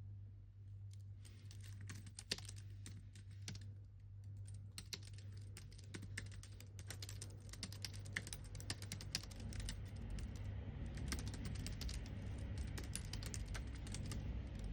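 Typing on a computer keyboard: rapid, uneven key clicks that start about a second in and keep going, over a steady low hum. A low rumble builds up in the last few seconds.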